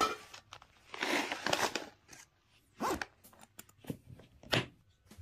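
Nylon backpack fabric rustling as a gas bottle is pulled out of it, then a few sharp clicks from the latch of a hard plastic rifle case.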